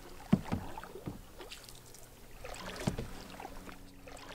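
Canoe paddles stroking through lake water, in a few uneven strokes, the sharpest about a third of a second in.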